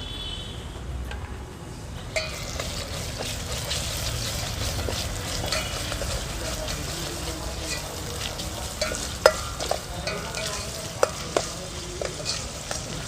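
Coconut paste frying in oil with browned onions in a pan, sizzling steadily as it is stirred. The sizzle thickens about two seconds in, and the spoon makes scattered clicks and scrapes against the pan, more often in the second half.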